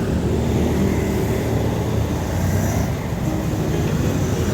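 Road traffic noise: a steady low rumble of passing vehicle engines and tyres.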